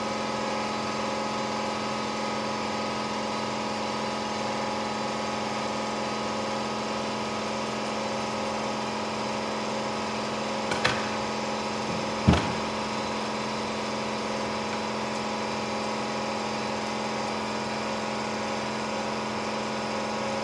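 Steady machine hum, a constant drone that never changes pitch, with two short knocks about eleven and twelve seconds in.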